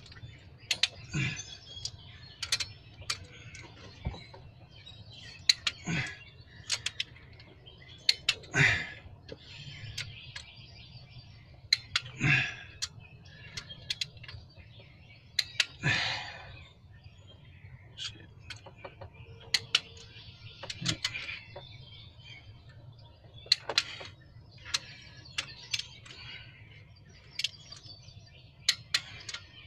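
Click-type torque wrench ratcheting and clicking as cylinder head bolts on an aluminium head are tightened to torque. Sharp metallic clicks come at irregular intervals, with several heavier knocks among them.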